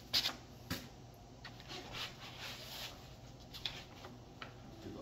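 Handling noise from a rifle and its parts being moved around in a padded soft rifle case: a few scattered light knocks and rustles, the sharpest just after the start and again under a second in.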